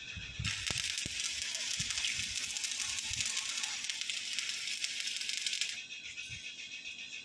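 Stick (arc) welding: the electrode arc crackles steadily for about five seconds as a bead is run on the steel trailer frame, then stops suddenly when the arc is broken.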